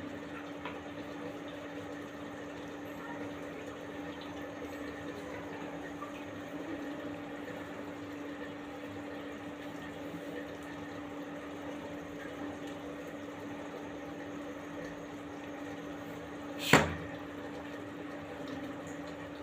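A steady low hum over faint, even background noise, with one sharp, loud knock about three-quarters of the way through.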